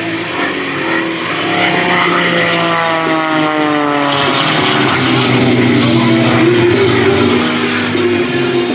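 MXS-RH aerobatic plane's engine and propeller, its pitch falling steadily for a couple of seconds about two seconds in, over rock music from the show's loudspeakers.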